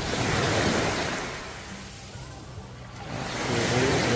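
Surf washing onto the beach: a rushing hiss that swells twice, about three seconds apart.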